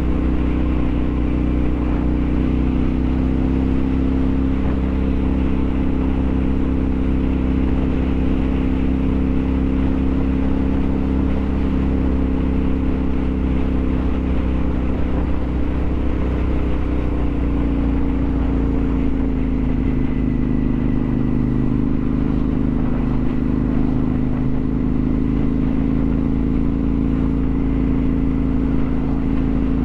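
Motorcycle engine running steadily at cruising speed, heard on board with steady wind and road noise. Its pitch drops slightly about 17 seconds in, then holds.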